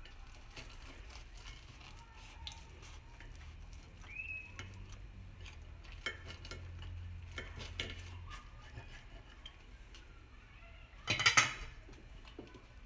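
A knife cutting a deep-fried bread pakora on a plate: scattered clicks and scrapes of the blade against the plate, then a louder clatter of cutlery on the dish about eleven seconds in.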